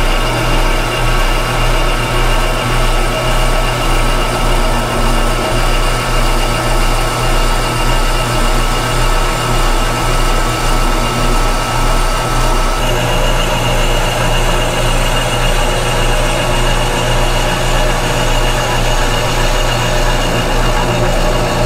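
Milling machine running with an end mill taking a light finishing pass across the face of a cast radiator tank: a steady machine hum with a regular pulse about twice a second. A little past halfway the sound shifts slightly.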